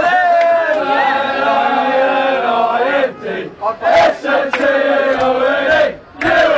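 Football supporters chanting together close by: one long sung line held for about three seconds, a short break, then more chanting with a brief pause near the end.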